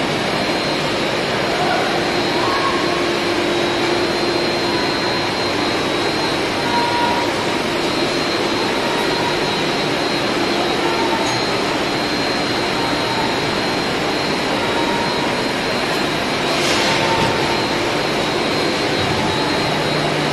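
Ammonia refrigeration plant machinery running: a steady, unbroken rushing drone with a thin high whine held over it.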